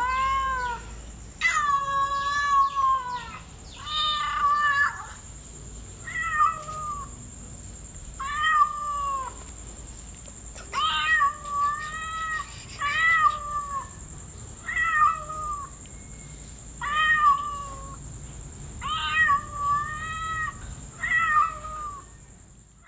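Kitten meowing over and over: short, high calls that rise and fall in pitch, about one every second or two.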